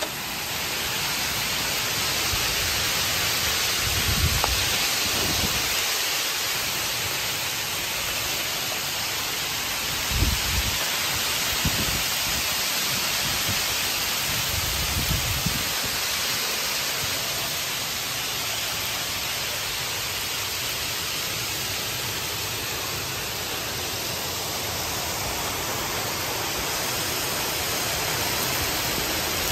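Heavy hail falling steadily, a dense unbroken hiss of hailstones hitting the ground, steps and railings. A few brief low thumps of wind or handling on the microphone come in the first half.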